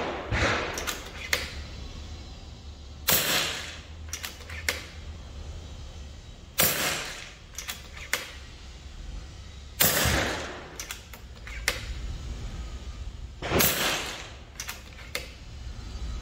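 Regulated FX Crown MK2 .22 PCP air rifle firing four shots about three and a half seconds apart, each a sharp crack with a short tail. Each shot is followed about a second later by a few quick, quieter mechanical clicks as the action is cycled for the next pellet.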